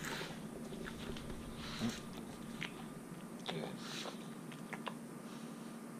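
Boston Terrier mouthing at a hand that holds its muzzle: soft scattered mouth clicks and a few short breathy snuffles.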